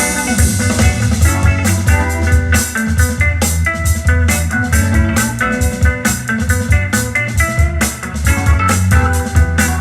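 Music with guitar and drum kit: a steady beat over strong bass, with plucked guitar notes above.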